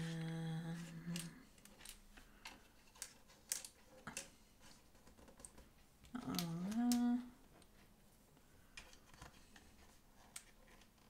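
Small light clicks and taps as skirting-board pieces are handled and pressed into place in a miniature dollhouse room. A person hums a steady 'mmm' at the start and a rising 'hm?' about six seconds in, the loudest sounds here.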